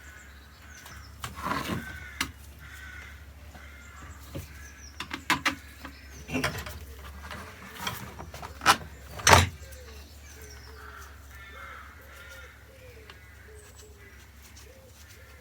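Knocks and clicks of metal detector parts being handled and fitted together during reassembly, the loudest about nine seconds in. Faint short repeated bird calls sound in the background.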